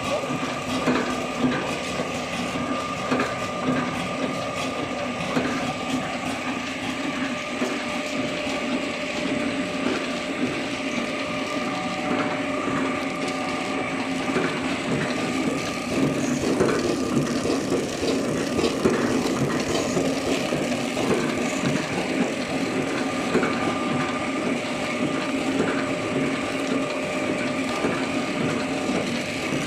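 Horizontal flow-pack packaging machine for playdough running steadily: a continuous mechanical hum with a few held tones and frequent small clicks and knocks from its moving parts.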